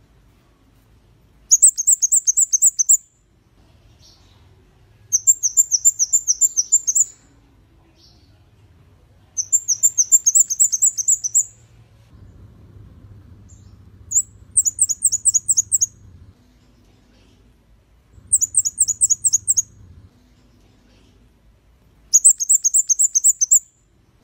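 Kemade kepala merah (red-headed flowerpecker) calling in six bursts of rapid, high, sharp chirps. Each burst runs about one and a half to two seconds, with pauses of about two seconds between them.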